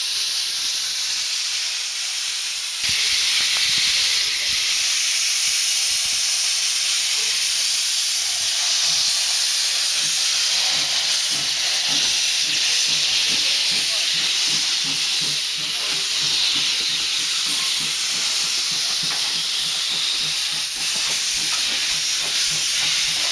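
Steam locomotive standing at the platform, letting off a steady hiss of steam that gets louder about three seconds in.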